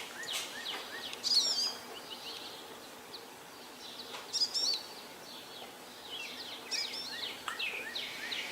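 Songbirds singing and chirping. One bird repeats a short warbled phrase three times, about every three seconds, over quicker chirps from others.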